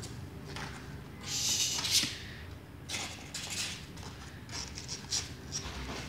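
Kittens' paws scrabbling on the creased lining of a cardboard box, making irregular bursts of rustling and scratching with a few light clicks.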